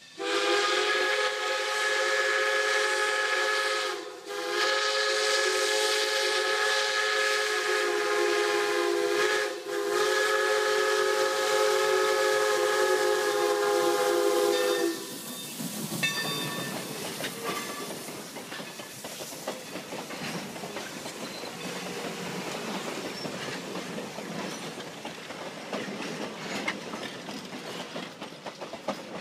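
Steam locomotive whistle blowing three long blasts, a chord of several tones, with short breaks about 4 and 9½ seconds in and stopping about halfway through. Then the train runs close past, its passenger coaches' wheels rolling and clacking over the rail joints.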